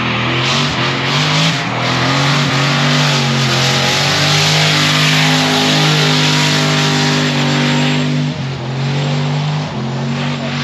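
Loud drag-race street car engine running with a deep, steady note, wavering with small blips of throttle in the first couple of seconds and easing off near the end.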